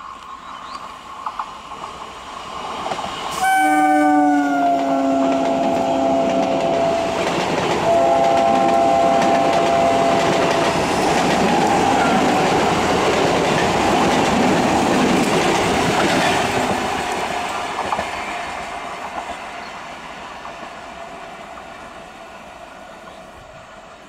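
Electric multiple unit commuter train sounding its horn twice as it approaches: a blast about three seconds in and another about eight seconds in. Its wheels then rumble and clatter loudly over the rails as the train passes close by, and the sound fades away near the end.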